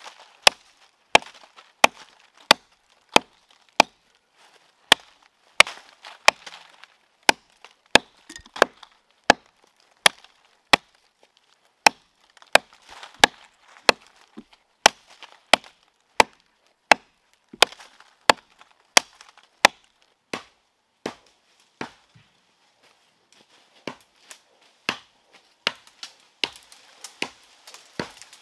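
Wood being chopped: a long run of sharp, evenly paced strikes, about one and a half a second, that thin out to a few softer blows about two-thirds of the way through, then pick up again near the end.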